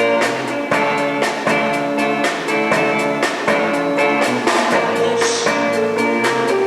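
Live band playing an instrumental passage: guitar notes over a drum kit keeping a steady beat, with no singing.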